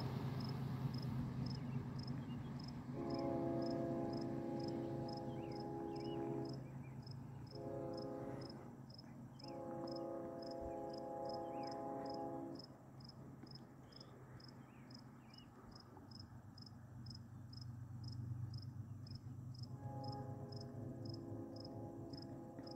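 A train's multi-chime air horn sounds in the distance, long, short, long, with another long blast starting near the end; the title names it as a Nathan Airchime K5HL on an approaching CPKC ES44AC. A cricket chirps steadily about twice a second throughout, over a low steady rumble.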